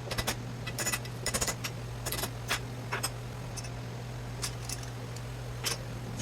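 Irregular light clicks and clinks of small metal parts being handled while an electrical panel is taken apart, more of them in the first few seconds, over a steady low hum.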